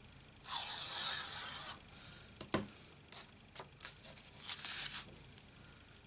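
Paper rubbing and sliding against paper and the craft mat as designer paper is handled and pressed into place: a scraping rustle lasting about a second, a single sharp click midway, then a few light ticks and a second short rub near the end.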